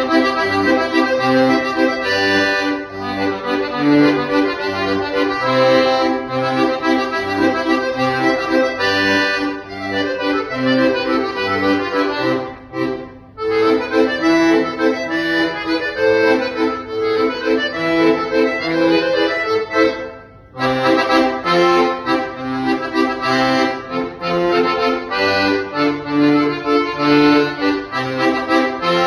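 Chromatic button accordion played solo: a melody with chords over separate low bass notes, with two short breaks in the music, one near the middle and one about two-thirds through.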